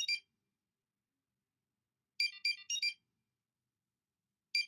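An alarm tone: a quick run of four high electronic notes, repeating about every two and a half seconds with dead silence between.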